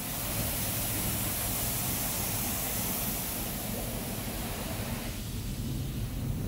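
Touchless car wash spray hitting a cargo van's body and windows, heard from inside the van as a steady dense hiss with a low rumble. About five seconds in, the hiss thins as the spray moves off.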